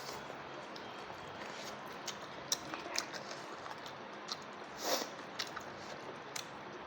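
Close-up chewing and mouth noises of someone eating a goat meat curry meal, with a few short sharp clicks and a louder mouth noise about five seconds in, over a steady background hiss.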